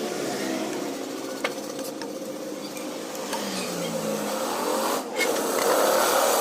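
Tauco with squid cooking in a pan on the stove: a steady hiss with a few light clicks of a utensil against the pan.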